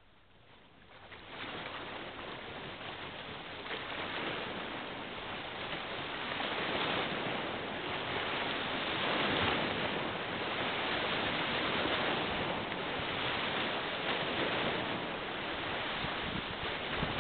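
Steady rushing noise of wind and river water, swelling about a second and a half in.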